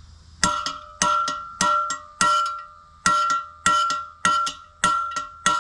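Hammer blows on a punch driving a tapered roller bearing race into a steel tractor wheel hub: nine ringing metallic strikes, about one every 0.6 s. The ping has changed and sounds solid, the sign that the race is fully seated.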